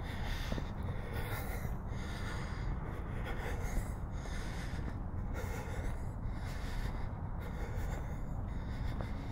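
Close nasal breathing of the person holding the camera, picked up by the built-in microphone: breaths in and out in a steady rhythm, over a constant low rumble.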